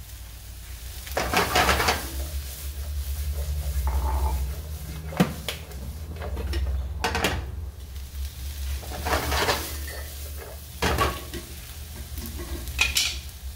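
Chopped vegetables and bacon sizzling in oil in a frying pan on a gas burner, with several short clatters and scrapes as the pan is shaken and tossed and the food is moved around.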